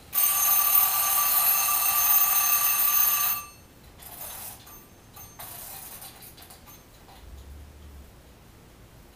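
A kitchen timer's alarm bell ringing loudly for about three seconds and then cutting off suddenly, followed by two brief, fainter rings.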